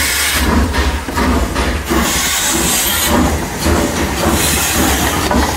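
Sound of a full-size steam train running: a steady hiss over a low rumble, with irregular beats.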